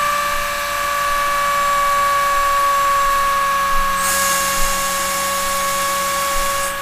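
Small Tesla-type steam turbine with a stainless steel rotor spinning with a steady multi-tone whine that sinks slowly in pitch as the boiler's steam pressure runs low. A high hiss joins about four seconds in and cuts off just before the end.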